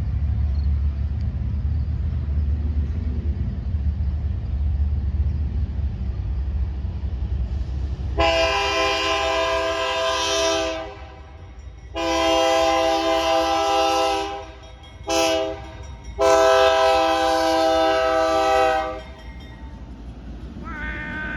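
Norfolk Southern locomotive approaching with a low rumble, then its air horn sounding the grade-crossing signal: two long blasts, a short one, and a final long one, each a chord of several notes.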